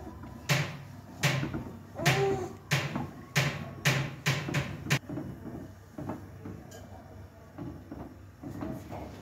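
A metal spatula knocking and scraping against a metal kadai while a thick egg-and-ghee mixture is stirred. About eight sharp knocks come at an even pace in the first five seconds, then softer, irregular scraping.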